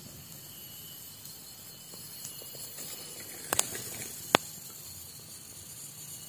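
Pot of water heating toward the boil, hissing steadily, with two sharp clicks about three and a half and four and a half seconds in.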